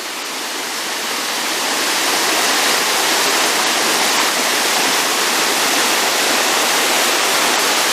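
Mountain stream water running and falling down a waterfall, a steady rush that grows louder over the first couple of seconds and then holds.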